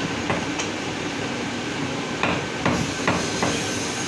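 Butcher's cleaver chopping mutton on a wooden log chopping block: three quick chops at the start, then four more chops about two seconds in.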